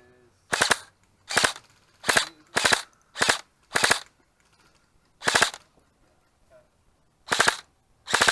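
Airsoft rifle firing short bursts of two to four rapid shots, about eight bursts spaced irregularly, laying down cover fire.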